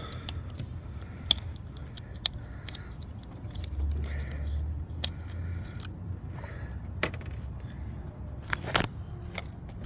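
Small plastic clicks and rattles as coil pack connectors on an engine wiring harness are worked loose by hand, with a few sharper clicks and a brief low rumble in the middle.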